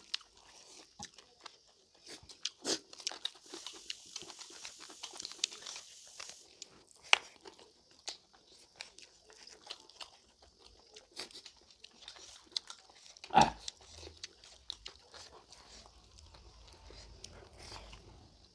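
Close-miked eating sounds: chewing, wet mouth clicks and smacking as two people eat rice and smoked pork with bamboo shoot by hand, with a few louder sharp bites.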